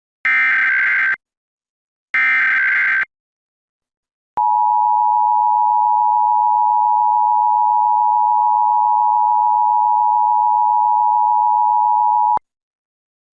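The last two of the three Emergency Alert System SAME header data bursts, each about a second long with a short gap between them. After a pause comes the EAS two-tone attention signal, held steady for about eight seconds and cut off abruptly. Together they open a nationwide EAS test alert.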